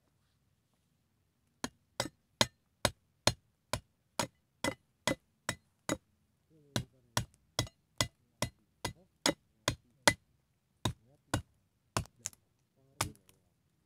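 Knife blade chopping into a thin wooden stick: a steady run of sharp wooden knocks, about two a second, with short breaks about six and ten seconds in.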